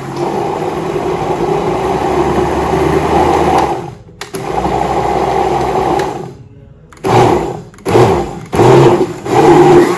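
Electric countertop blender running, puréeing a pumpkin mixture in its glass jar. It runs steadily, drops out briefly about four seconds in, stops a little after six seconds, then is switched on again in about four short pulses near the end.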